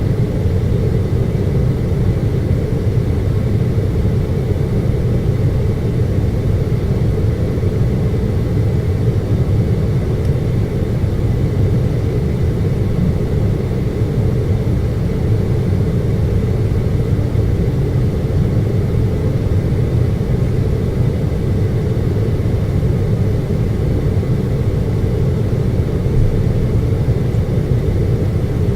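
Air conditioner humming steadily, a constant low rumbling drone with a faint high steady whine.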